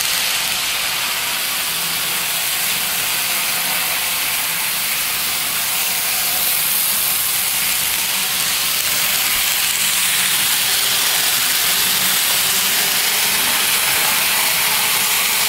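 N scale model trains running steadily around a track: a constant hiss with a faint low hum underneath, no clicks or changes standing out.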